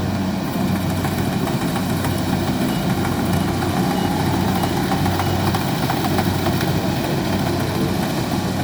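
Kubota combine harvester's engine running steadily, a constant mechanical hum with no change in speed.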